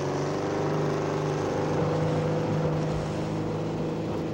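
A motor engine running with a steady drone, its pitch stepping up slightly at the start.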